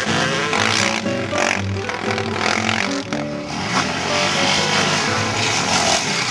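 Background music mixed with the engine of a sport quad revving as it is ridden hard.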